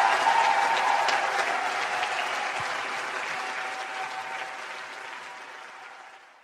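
Concert audience applauding after a song, the applause fading out steadily to silence near the end.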